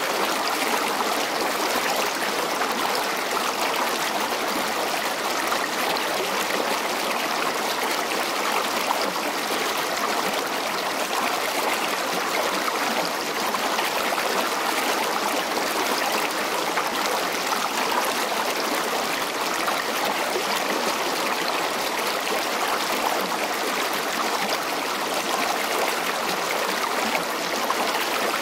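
Steady, even rush of flowing river water, unchanging throughout.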